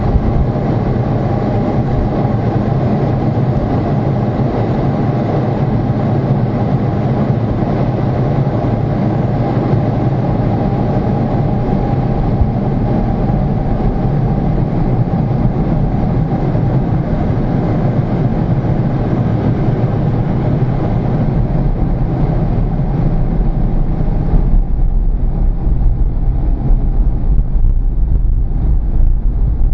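Steady roar of a MiG-29's twin RD-33 turbofans and rushing air, heard inside the cockpit. Near the end the higher hiss falls away and a deeper rumble grows a little louder.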